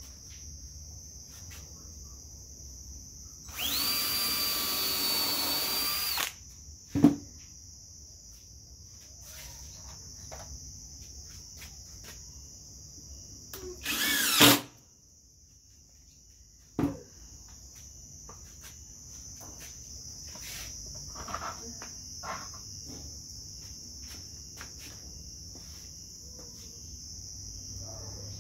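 Cordless drill running for about two and a half seconds a few seconds in, spinning up and then holding a steady pitch as it bores a countersunk pilot hole in pine. About fourteen seconds in comes a shorter power-tool burst that rises in pitch. There are sharp knocks of tools being handled, and crickets chirp steadily in the background.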